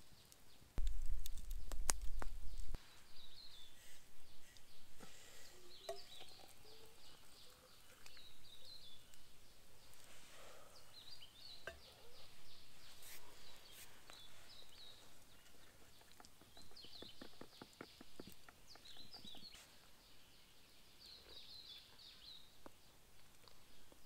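Rainforest birds calling at dawn: many short, high, repeated chirps with a few lower gliding calls. A low rumble lasts about two seconds near the start, and a run of quick ticks comes about two-thirds of the way in.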